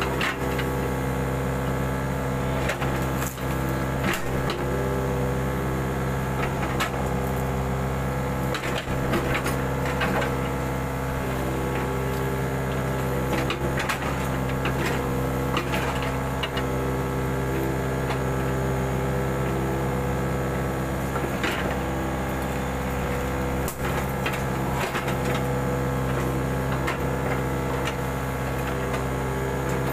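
Mini excavator's engine running steadily, with scattered knocks from the machine at work.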